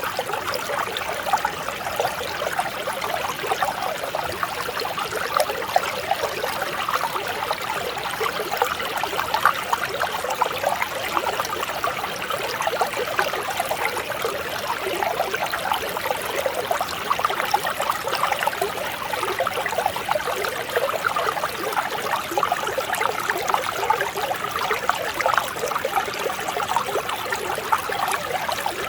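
A clear mountain stream flowing over rocks: a steady babble of small splashes and trickles that keeps on without a break.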